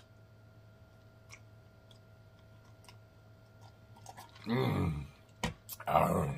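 A person drinking from a tumbler: a few faint mouth clicks while sipping, then a short voiced 'mmm' about four and a half seconds in, a sharp click, and a breathy voiced 'ahh' near the end after the swallow.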